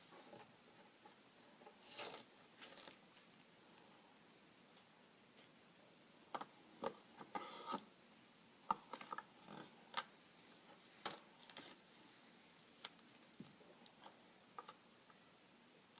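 Faint, scattered short rustles and small clicks of colourful adhesive tape being laid and pressed down onto a plastic light switch cover.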